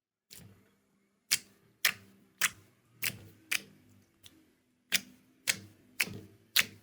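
Slime being pressed and worked, giving a run of sharp crisp pops or clicks about twice a second, each dying away quickly.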